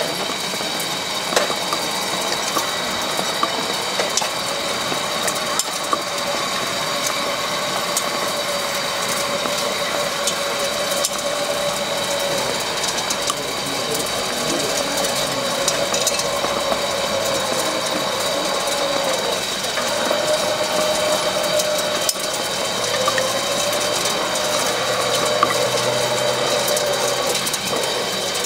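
Radio-controlled model trucks and construction machines running: a steady high whine, a lower motor whine that rises and falls in pitch as they drive, and scattered small clicks and knocks.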